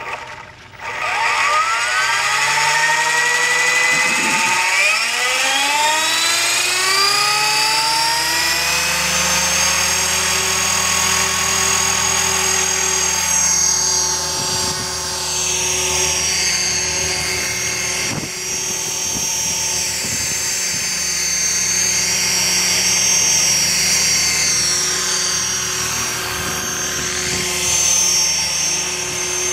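Align T-Rex 500 electric RC helicopter spooling up: the whine of motor and gears rises steadily in pitch over about eight seconds, then holds high with the rotor whoosh as it lifts off and hovers, the pitch shifting a little with the flying.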